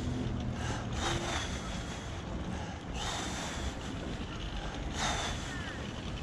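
Ottobock B500 electric wheelchair rolling along a paved path: a steady low rumble of its tyres and drive, with three short rushes of wind on the microphone.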